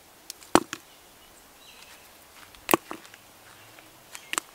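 Several short, sharp clicks and knocks from hands handling a plastic-bottle crab trap sunk in sand while the bait is put in. The loudest is about half a second in, with a pair near three seconds and another pair near the end.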